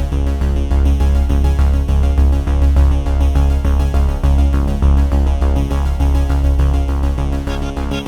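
Background music: upbeat electronic synthesizer track with a pulsing bass and a steady beat.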